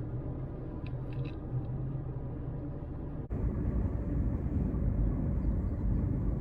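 Steady road and engine noise of a car driving. About three seconds in it changes suddenly to a louder, deeper steady rumble.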